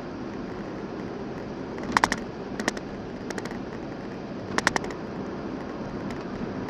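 Steady road noise inside a moving car's cabin, with short clusters of rapid sharp clicks: a loud one about two seconds in, smaller ones just after, and another loud cluster at about four and a half seconds.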